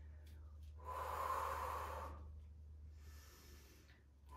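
A person breathing hard while doing resistance-band bicep curls: one long breath out about a second in, then a fainter breath near the end, over a low steady hum.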